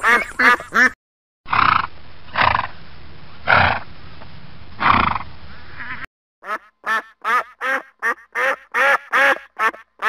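Domestic waterfowl quacking in quick runs of short calls. In the middle stretch there are four louder, hoarser calls about a second apart over a steady background hiss.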